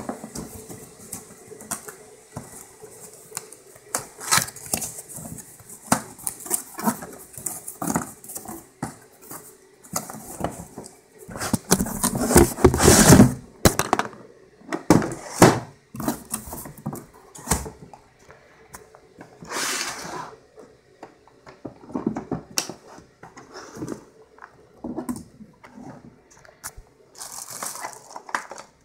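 Handling and opening a cardboard box and plastic packaging: irregular rustling, scraping and knocking, loudest in a long dense rustle about twelve to fourteen seconds in.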